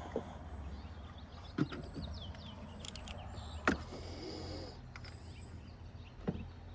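A few sharp metal clicks and knocks of hand tools at the cam hub of a Volvo five-cylinder engine, the loudest about three and a half seconds in, over a steady low hum.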